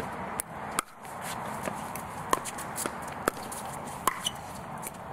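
Pickleball paddles hitting a hard plastic ball in a doubles rally at the net: a run of sharp pops, about seven, roughly every half second to second, with shoes shuffling on the hard court.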